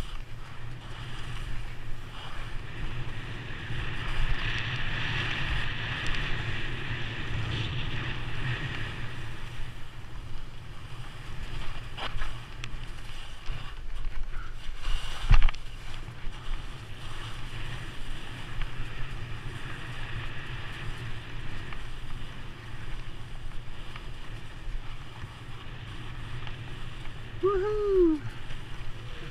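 Skis hissing and scraping over soft spring snow during a fast continuous run, with wind buffeting the helmet-mounted microphone. A sharp knock about halfway through is the loudest moment, and a short pitched, arching call comes near the end.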